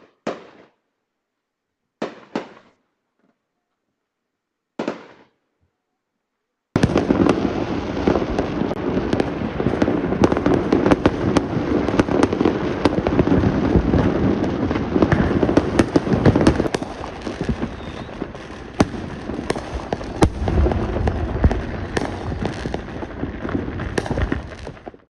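Fireworks going off: three single bangs a couple of seconds apart, then from about seven seconds in a dense, continuous barrage of bangs and crackling from many fireworks at once, which cuts off just before the end.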